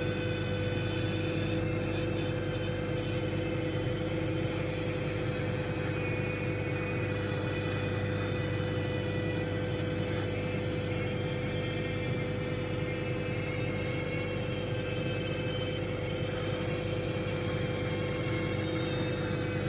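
Microwave oven running with a steady hum, over it thin high-pitched whistling squeals that shift in pitch and come and go: steam escaping through the skin of a sweet potato as it heats.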